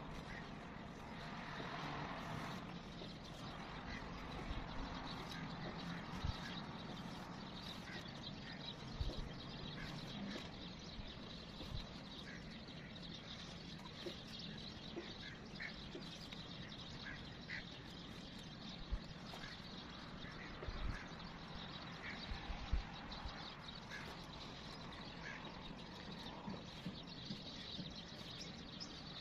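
Outdoor background: a steady low hum of distant traffic with scattered short bird calls, and faint clicks and rustles of a ribbon being wound around a wire hanger.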